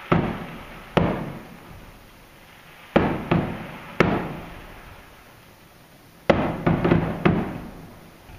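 Aerial firework shells bursting: about ten sharp bangs, each followed by a rolling echo. They come singly at first, then in a quick cluster of about five near the end.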